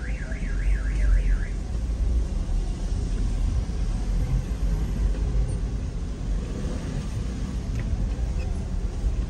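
A warbling electronic alarm tone, rising and falling about four or five times a second, stops about a second and a half in. It sits over a steady low rumble of the car's engine and slow street traffic heard from inside the cabin.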